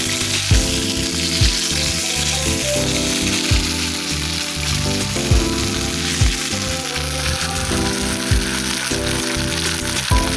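Chicken and offal frying over a campfire with a steady sizzle, under background music with sustained chords and soft low beats.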